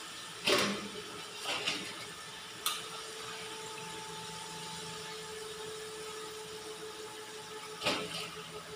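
Chicken deep-frying in a steel pan of oil under the steady whirring hum of a kitchen extractor hood, with a few sharp metal clanks as the cook's skimmer and utensil knock against the pan, the loudest about half a second in and another near the end.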